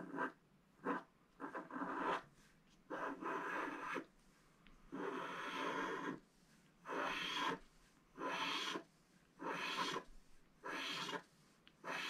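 Pointed wooden stylus scratching the black coating off a scratch-art sheet in short rasping strokes, about ten of them, each half a second to a second long with brief pauses between.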